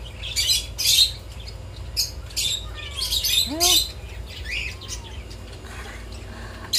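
Many caged birds chirping, with short high chirps repeating in quick succession and a few gliding whistles. One lower, rising call comes about three and a half seconds in.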